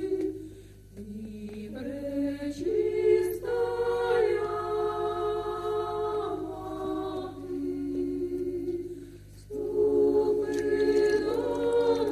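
A women's choir sings a slow song unaccompanied, in harmony, holding long notes that move in steps from one pitch to the next. The singing thins and dips in level briefly about a second in and again near the end, then swells back.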